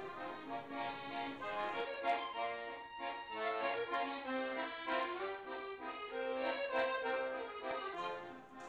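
Accordion music playing a melody of held notes.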